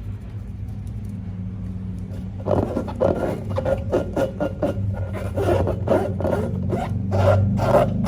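Rapid, repeated scraping and rubbing strokes start about two and a half seconds in, over a low steady hum.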